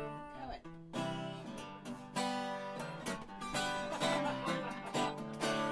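Acoustic guitar strummed in a steady country-blues rhythm, a chord struck about once a second, played between sung lines.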